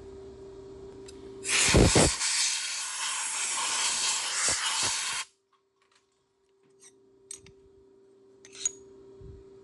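Compressed-air blow gun blasting in one steady hiss for about four seconds, with a knock near its start, as typically used to clear aluminium chips from a freshly milled part. Before it there is a steady low hum. After it there are a few faint clicks.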